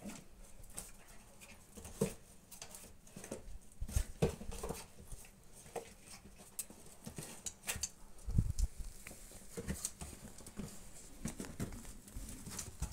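Puppies scrabbling and pattering about a small wooden dog house, paws on its wooden floor and the paving, with scattered light knocks against the wood and a louder bump about eight and a half seconds in.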